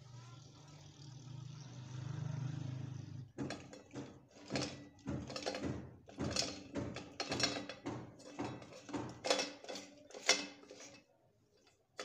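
Reverse clutch drum of a Toyota A245E automatic transmission being turned and seated into its case: a run of irregular metallic clicks and clatter as the clutch plates and splines engage. A low hum before it cuts off abruptly about three seconds in.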